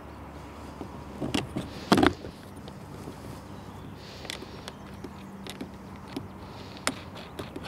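Clicks and knocks of a boat paddle being handled and fitted against an inflatable boat and its paddle holder. A few scattered clicks, with the loudest knock about two seconds in.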